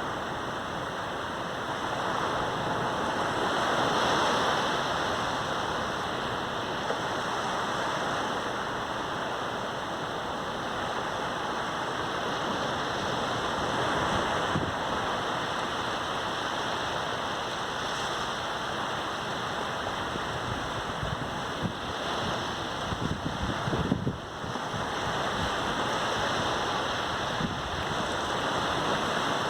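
Sea surf on a sandy beach: a steady rush of waves breaking and washing ashore, swelling and easing every several seconds. A couple of brief bumps come about three-quarters of the way through.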